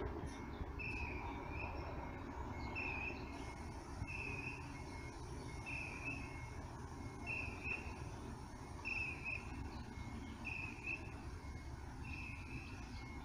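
Low, steady rumble of large tour-bus engines running while the buses manoeuvre, with a short high chirp repeating evenly about every second and a half.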